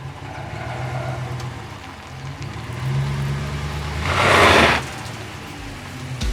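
A vehicle engine running steadily at low speed, with a brief loud rush of noise about four seconds in.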